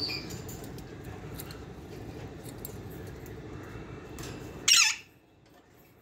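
Alexandrine parakeet giving one short, loud, harsh squawk near the end, over a low background rumble that stops just before the call.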